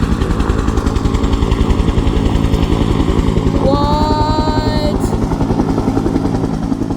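Helicopter rotors beating rapidly and steadily, with the engine running under them, as it hovers and hauls equipment.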